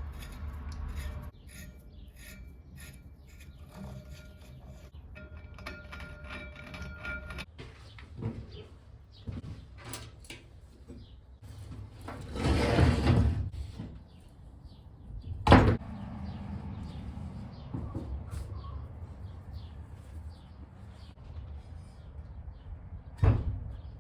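Lathe machining an 18-inch clutch plate, with a steady thin whine from the cut for about the first seven seconds. Scattered clunks and knocks follow; the loudest are a noisy surge about halfway and a sharp knock soon after.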